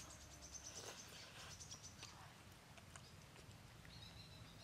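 Faint birdsong in quiet outdoor ambience: a rapid run of short high chirps in the first couple of seconds, then a short whistled note near the end.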